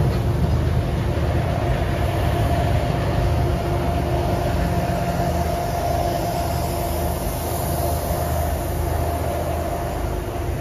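MBTA commuter train of bilevel coaches rolling past at close range: a steady rumble and clatter of wheels on rail with a faint steady hum, easing slightly near the end as the last car pulls away.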